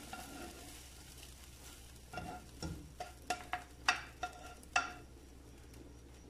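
Plastic spatula scraping fried rice and tomato out of a non-stick frying pan into a pot of broth. From about two seconds in comes a run of about seven sharp scrapes and taps on the pan, each ringing briefly.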